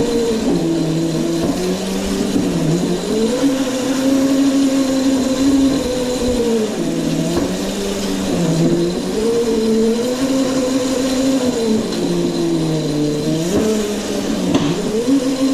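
Electric drive motor of a Razor Crazy Cart XL whining while the cart is driven, its pitch falling and rising again several times as it slows and speeds up.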